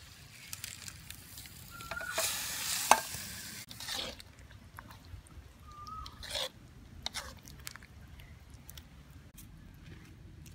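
A ladle stirring and scooping thick curry in a metal pot, with a wet, scraping stretch and a sharp clink about three seconds in, then a few shorter scoops. A bird gives a short call twice.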